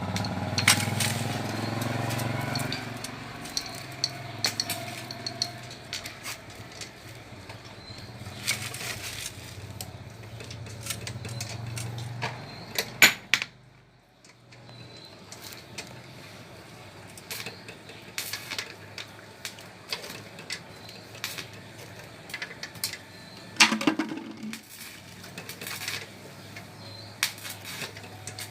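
Metal tools and parts clinking and knocking, many separate sharp clicks, over a steady low hum that drops away about halfway through.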